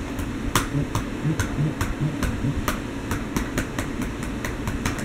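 Computer keyboard keys being typed: a run of irregular clicks, about four a second, over a steady low hum.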